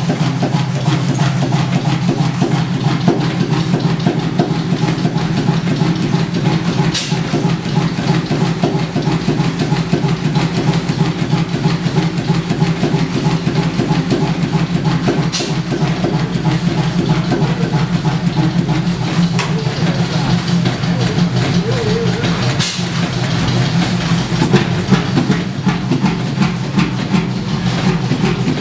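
Large stationary diesel engine running steadily, a fast even firing beat, with a few sharp clicks about 7, 15 and 23 seconds in.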